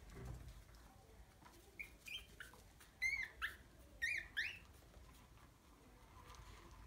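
Young Maltese puppies squeaking: a string of short, high-pitched squeaks, growing louder, with the loudest pair about three and four seconds in.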